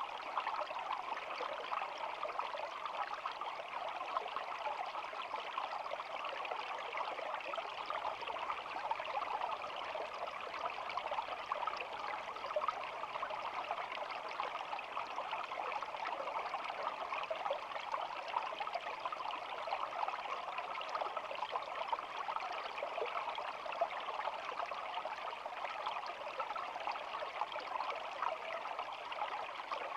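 Shallow stream flowing, a steady babbling trickle of water with no let-up.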